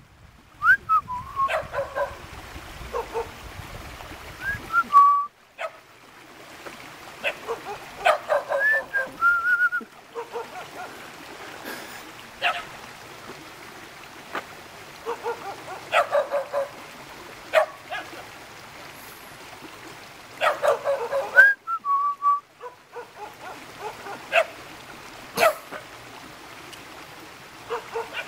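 Dogs barking in short bursts, again and again, with a few brief high gliding calls between the barks.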